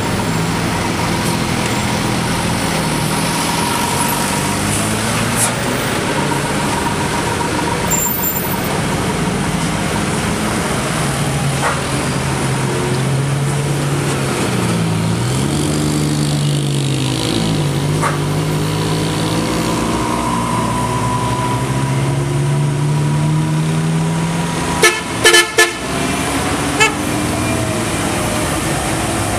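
Heavy diesel cargo truck engines labouring up a steep hairpin climb; the engine pitch drops and climbs again about halfway through. A burst of short horn toots sounds near the end.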